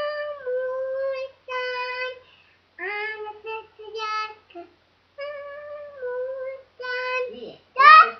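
A young girl singing on her own, a run of short held notes in phrases of about a second with brief pauses between them. Near the end her voice slides up and down in a loud cry.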